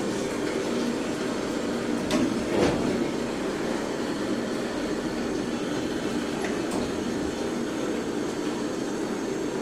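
A motor running with a steady hum, with two light knocks about two seconds in.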